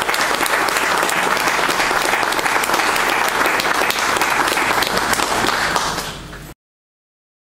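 Audience applauding, a dense run of many hands clapping, which fades and then cuts off abruptly to silence near the end.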